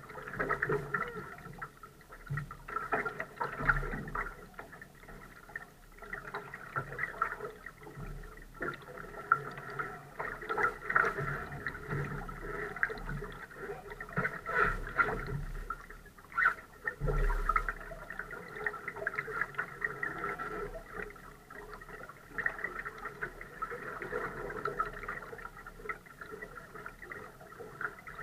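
Water gurgling and lapping against the hull of a Laser sailing dinghy moving in light air, with irregular small splashes.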